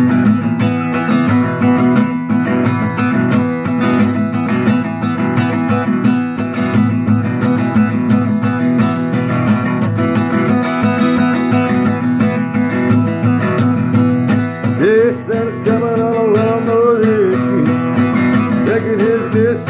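Acoustic guitar strummed steadily in an instrumental break of a country-style song. Near the end a wordless voice hums along twice.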